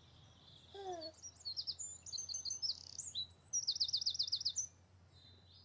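A songbird singing a run of high chirps and whistles, ending in a quick trill of about eight notes that stops about four and a half seconds in. About a second in there is a short falling tone.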